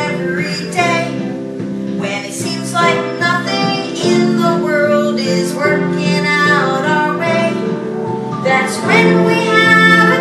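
A children's song playing, a woman singing a bright melody over guitar accompaniment.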